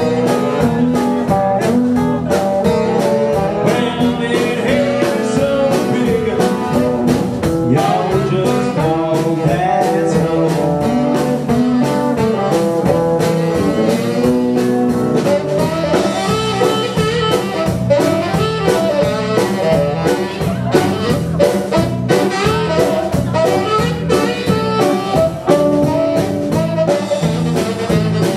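Live blues band playing: saxophone over electric guitar and drum kit, with a steady beat.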